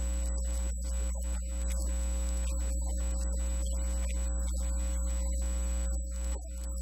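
Steady low electrical hum, mains hum in the recording, with a thin high whine above it and faint choppy noise that keeps cutting in and out.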